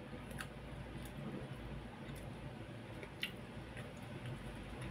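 Eating sounds: a few small clicks of metal cutlery against a plastic food container as rice is scooped, the clearest about three seconds in, with chewing between them.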